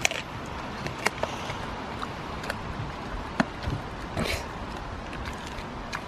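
Dogs chewing raw chicken wings: scattered crunches and clicks of teeth on bone and gristle, over a steady background hiss.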